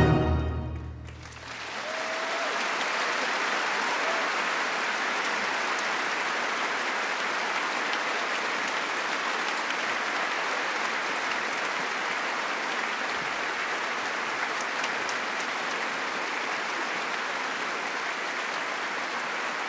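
A full orchestra's final chord dies away in the first second or so, then a large audience applauds steadily.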